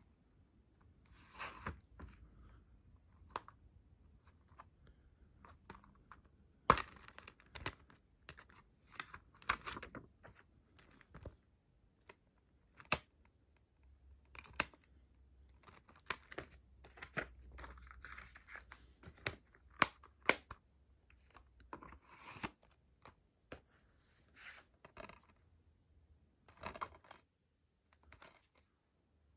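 Plastic Blu-ray and DVD cases being handled: scattered sharp clicks and snaps of the cases opening and closing, the loudest about seven seconds in, between stretches of rustling and scraping as the cases slide and rub in the hands and against a cardboard slipcover.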